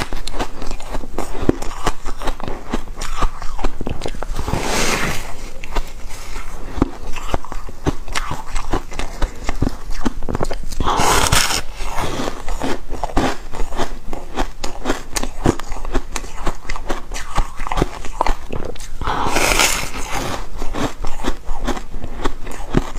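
Frozen foam ice being bitten and chewed: a close, dense crackle of small crunches, with three louder, longer bursts about 5, 11 and 19 seconds in.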